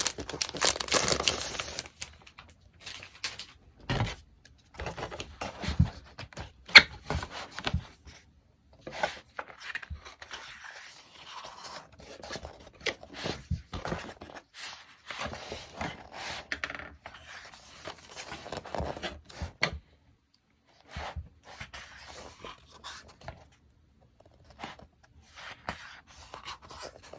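Packaging wrap being torn and peeled off an individually wrapped item, in irregular bouts of rustling and tearing with short pauses and a few sharp clicks of handling.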